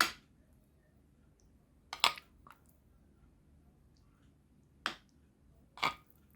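A serving utensil knocking against dishes as eggplant dip is scooped onto a plate: a few sharp knocks spaced a second or more apart, one of them doubled about two seconds in.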